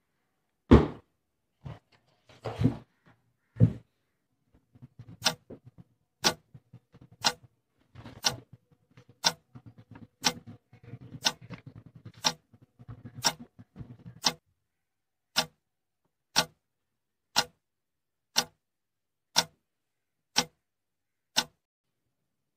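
A clock ticking steadily once a second, starting about five seconds in, with soft rustling of paper and pen under the first part. Before the ticking there are four loud thumps.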